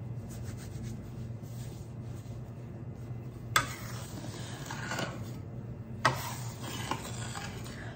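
Metal bench scraper sliding and scraping on a granite countertop as it scoops under a round of sourdough dough to shape it, with three sharp clicks of the blade against the stone in the second half. A steady low hum runs underneath.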